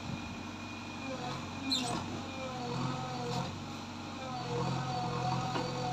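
JCB 3DX backhoe loader's diesel engine working under load while the backhoe arm digs, with a hydraulic whine that rises and falls and grows louder in the second half. A short sharp knock comes near two seconds in.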